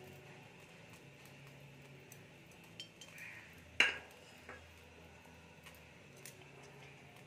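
Kitchen utensils clinking: one sharp metallic clink about four seconds in, with a few lighter clicks around it, over a faint steady hum.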